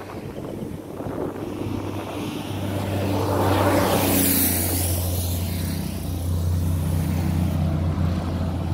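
Road traffic passing on a bridge. A pickup truck goes by about four seconds in with a rush of tyre and air noise that swells and fades. Under it runs the steady low drone of an approaching truck engine, which grows a little louder near the end.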